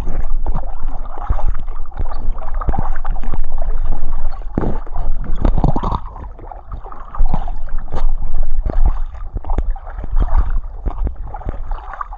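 Wind rumbling on the microphone, with water splashing and many irregular knocks. It dips briefly a little past halfway.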